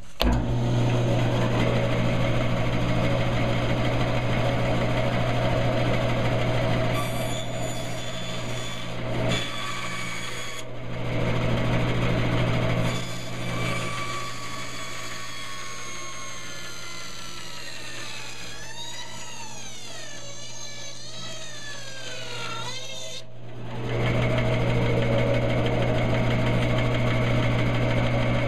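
Bandsaw running with a quarter-inch blade cutting through a block of basswood: a steady motor hum under the noise of the blade in the wood. Through the middle its whine sinks and wavers in pitch, and it steadies again near the end.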